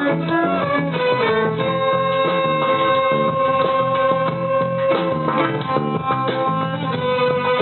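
A small band playing instrumental music live, with plucked guitar over a steady low rhythm and a long held melody note through the middle.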